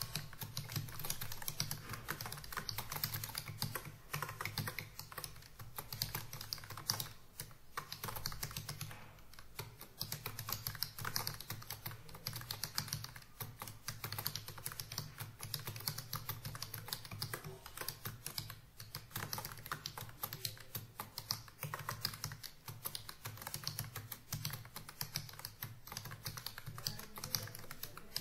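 Fast, continuous typing on a computer keyboard, a dense stream of key clicks with brief pauses, at a speed of about 55 to 58 words per minute.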